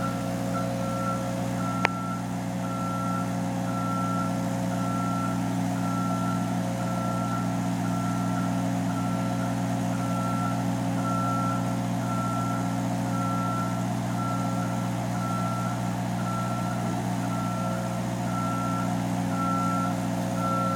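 A heavy vehicle's reversing alarm beeping about once a second over its engine running steadily, with one sharp click about two seconds in.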